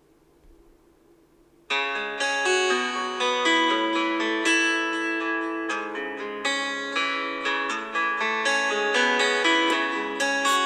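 A Xiaomi Redmi K30S default ringtone: a plucked-string, guitar-like melody of quick successive notes. It starts about two seconds in after near silence and cuts off abruptly at the end.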